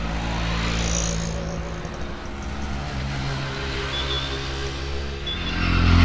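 Motor vehicle engines running, with one vehicle growing louder near the end as it comes closer.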